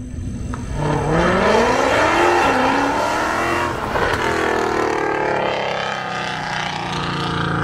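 A supercar engine accelerating hard: the revs climb steeply with short dips between gears. A second rising burst of revs follows about halfway through and fades away.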